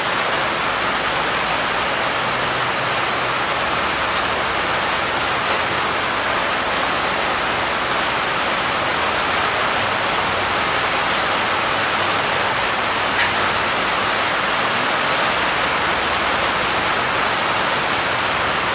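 Heavy rain falling steadily, a loud, even hiss. One small click about thirteen seconds in.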